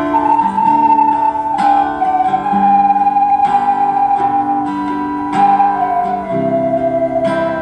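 Ocarina playing a slow, smooth melody with pitch slides between some notes, over acoustic guitar chords plucked about every two seconds.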